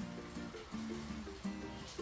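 Background music: a light plucked-string tune, ukulele or guitar, with notes changing several times a second.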